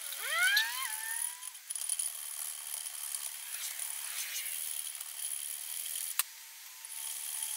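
Small hand file rasping on the aluminium crankcase at the boost port in uneven strokes, metal scraping on metal, while the port is opened out to match the cylinder gasket. A brief rising squeal comes near the start, and a single sharp click about six seconds in.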